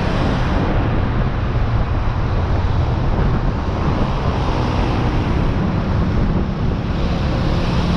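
Wind rushing over the microphone of a motorcycle riding in city traffic at about 30–40 km/h, mixed with the motorcycle's engine and road noise, in a steady, loud low rush.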